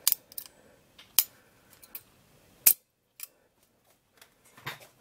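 Sharp metallic clicks and snaps from the exposed shutter mechanism of a Polaroid Model 800 Land camera being worked by hand. The three loudest come about a second apart in the first three seconds, with smaller clicks between them and another click near the end.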